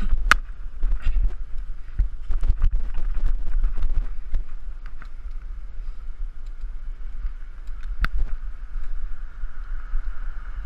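Wind rumbling on a bike-mounted action camera's microphone while riding, with sharp clicks and rattles as the bike rolls over the sidewalk. The rattles come thick over the first few seconds, then thin out, with one louder knock about eight seconds in.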